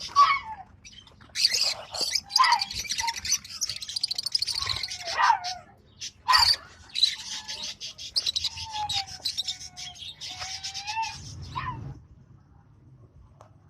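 Lovebirds chattering, with rapid, scratchy chirping and a few loud, shrill calls; the chatter stops about twelve seconds in.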